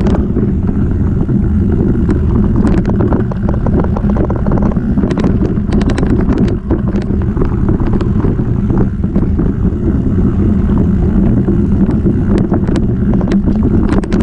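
Wind buffeting the microphone of a mountain bike's mounted action camera at speed, a loud steady rumble. Scattered clicks and rattles come from the bike and its tyres on a rough dirt and gravel trail.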